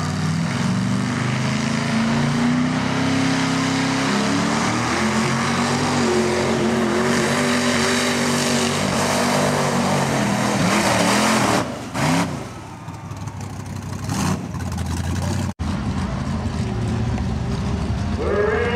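Mega truck's engine revving up hard as it launches and held at high revs while it ploughs through a mud pit, the revs wavering, then falling away about two-thirds of the way through. After an abrupt cut, another mega truck's engine runs steadily at the start line.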